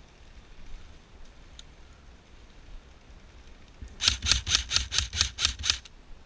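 Airsoft gun firing a rapid string of about ten sharp shots, roughly five or six a second, starting about four seconds in and lasting about two seconds.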